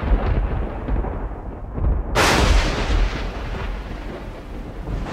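Thunder: a low rolling rumble with a sharp crack about two seconds in that slowly rolls away.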